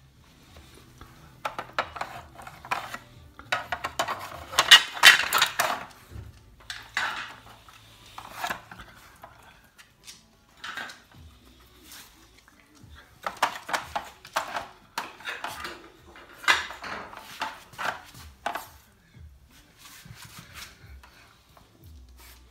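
Hard plastic pieces of a dog puzzle board clattering and scraping as a dog paws at them and pushes the slider, in quick runs of knocks with two busy spells, loudest about five seconds in.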